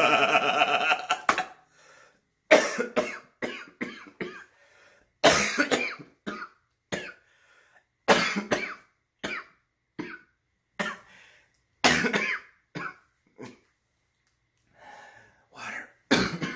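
A man coughing over and over in short, harsh fits with brief pauses between them, after a music sting ends about a second in.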